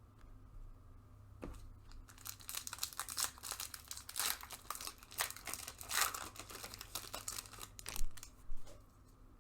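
A Bowman trading-card pack's wrapper being torn open and crinkled by hand: several seconds of dense crackling, loudest near the end.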